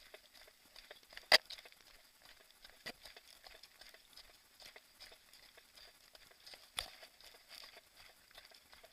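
Running footsteps crunching on loose scree and rock, an irregular patter of small ticks. A single sharp knock stands out about a second in, with smaller knocks near three and seven seconds.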